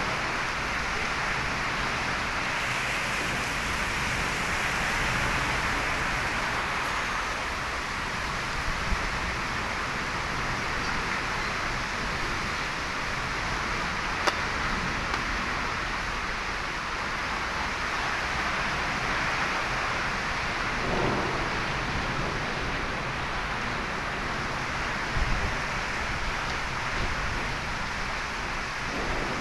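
Heavy rain falling in a storm, a steady hiss with a couple of brief sharp ticks.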